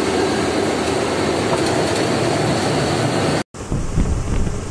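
Steady engine and road noise inside a moving lorry's cab. After a short break about three and a half seconds in, wind buffets the microphone with uneven low rumbles at the side window.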